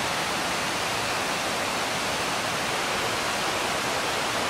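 Steady rush of river water, an even hiss with no breaks.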